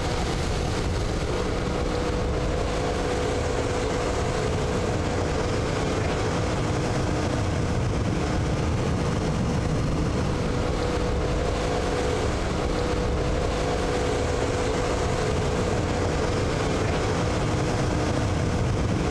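Motorboat engine running at a steady pitch, under a constant rush of water.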